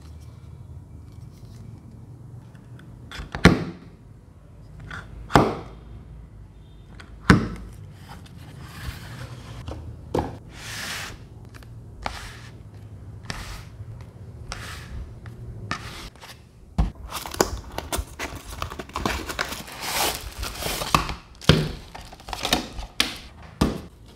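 Hands handling small plastic fans and their cardboard packaging on a tabletop. There are three sharp knocks in the first few seconds as items are set down, then a busy stretch of rustling and crinkling as a box is opened and a fan in a plastic bag is drawn out.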